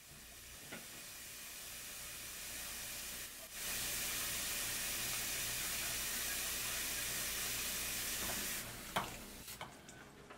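Water running from a kitchen faucet into a sink, a steady hiss that gets louder about three and a half seconds in and fades near the end. A few clicks and knocks follow as the faucet handle is worked.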